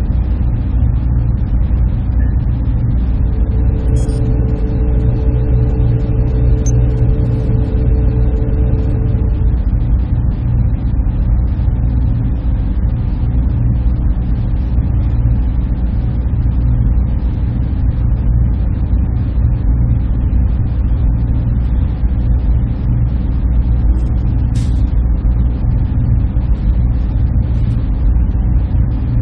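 Server room ambience: a steady, loud low hum of cooling fans and machinery. A faint steady tone sits over it for several seconds early on, and there are a couple of brief high ticks.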